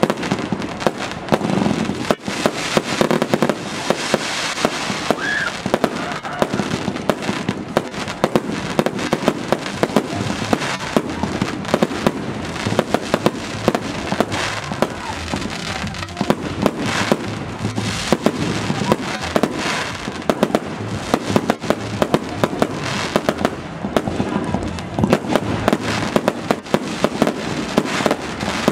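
Fireworks finale: a dense, continuous barrage of aerial shells bursting, many sharp bangs a second over a constant crackle.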